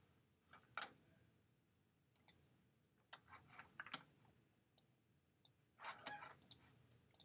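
Faint, scattered clicks of a computer mouse and keyboard, a dozen or so short clicks spaced irregularly, with a small cluster about six seconds in.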